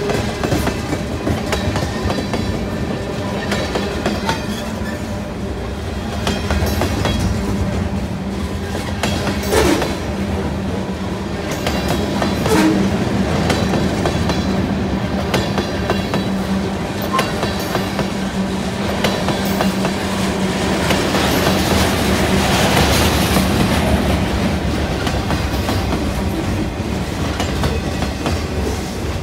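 Freight train cars, tank cars and then boxcars, rolling past with a steady rumble and wheels clacking over rail joints, with one louder clank about ten seconds in.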